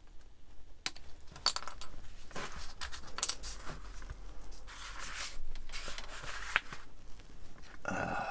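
A plastic model-kit sprue clicking and rattling as it is handled, lifted and set back down on a cutting mat: a string of sharp, irregular clicks and light knocks.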